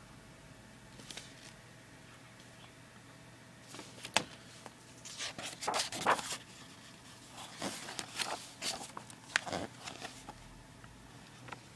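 Paper and a hardback book being handled: irregular rustles and light clicks of pages and sheets, starting about four seconds in and stopping shortly before the end.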